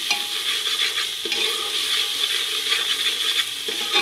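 Onion and ginger-garlic paste sizzling in hot oil in a pressure cooker while a metal spoon stirs it, scraping and tapping against the pot a few times.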